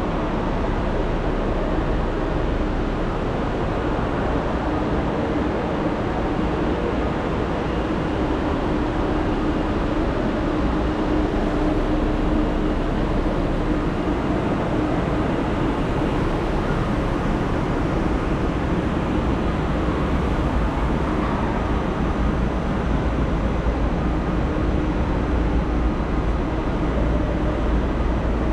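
Steady din of a large railway station hall with trains running, heavy in the low end. A steady hum grows louder for a few seconds around the middle.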